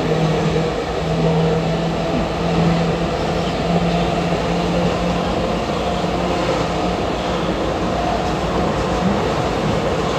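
Athens Metro Line 1 electric train running along the track: a steady rumble of wheels and rails with a low, even motor hum.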